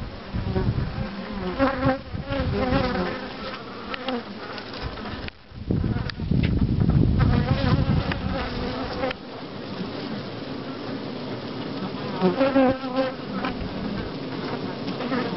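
Honeybee colony in a log hive buzzing, with individual bees' wingbeat buzz wavering up and down in pitch close by. A low rumble comes and goes, strongest in the first few seconds and again about six to nine seconds in.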